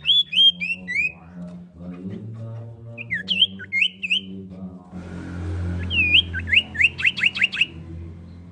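Common iora calling in sharp whistled notes. First comes a run of five falling notes, then a few more about three seconds in, and near the end a fast run of short rising notes. A low human voice runs underneath.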